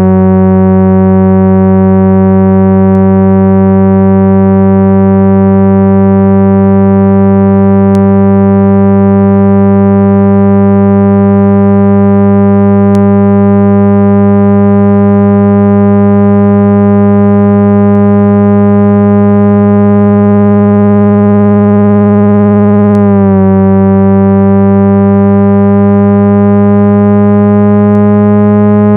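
Loud, steady synthesized cleaning tone with many overtones, played to vibrate a phone speaker's diaphragm and push water and dust out through the grille. The pitch drifts slightly upward, with a brief wobble about 23 seconds in.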